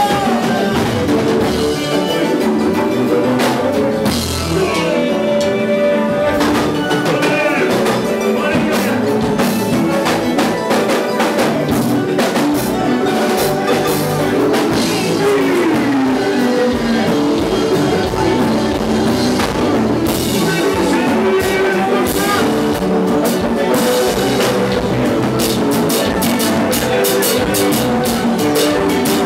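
Loud kompa dance music with a drum kit, guitar and singing, playing steadily.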